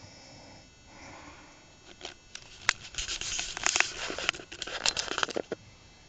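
Rustling and crinkling with sharp clicks and taps, building from about two seconds in into a dense crackling burst that stops about five and a half seconds in.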